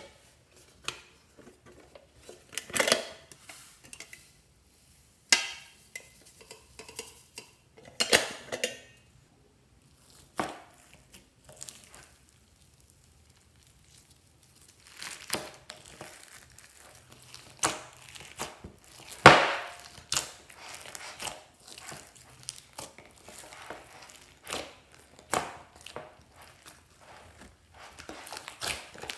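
Slime with foam beads being stretched, squished and kneaded by hand in a glass dish: crackling, crunching and sticky squishes, with scattered sharp knocks and clicks against the glass. Several louder crunches stand out, the loudest about two-thirds of the way through, and the small crackles come thicker in the second half.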